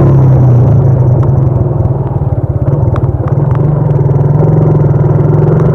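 Wind buffeting and rumbling on a foam- and surgical-mask-wrapped earphone microphone with the helmet visor open, over the steady hum of a motorcycle engine under way. The wind noise is loud and rough, easing briefly a little past the middle, with a few light clicks.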